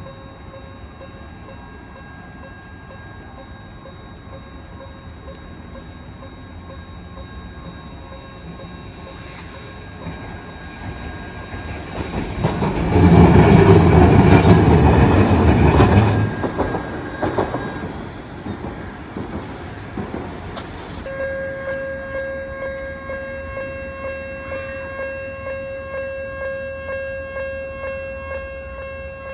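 The unusual-sounding alarm of a Japanese level crossing sounds with steady electronic tones while a Randen Arashiyama Line train runs through loudly for a few seconds midway. About two-thirds of the way in, the alarm switches to a different, louder pulsing tone.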